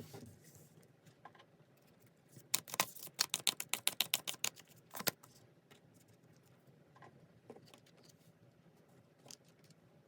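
Tarot cards being handled: a quick run of about a dozen crisp clicks, roughly eight a second, a couple of seconds in, then a few scattered single clicks.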